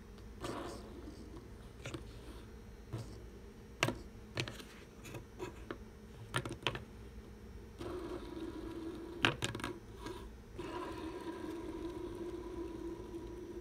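Plastic Simple Dimple fidget spinner: scattered sharp clicks and taps as fingers press its silicone dimples and handle it, then from about eight seconds in a steady whirring hum as it spins flat on a wooden board, stopping briefly and set going again with a click around ten seconds in.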